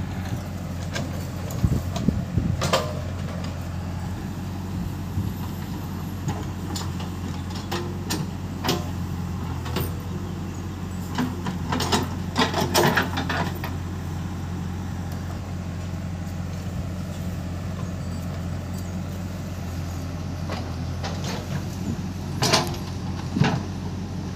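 JCB 3DX backhoe loader's diesel engine running steadily as it digs and loads earth. Separate clanks and thuds come from the steel bucket scraping the pile and dumping soil into a steel tipper trailer, the loudest cluster about halfway through and two more near the end.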